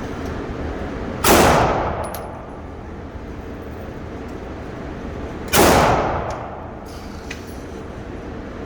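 Two gunshots from a Glock pistol, about four seconds apart, each followed by a short echoing decay.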